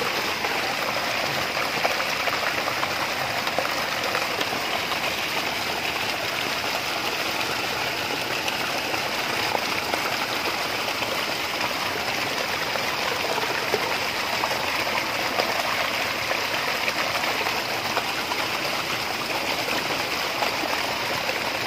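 Steady rush of stream water flowing through a mesh net fish trap.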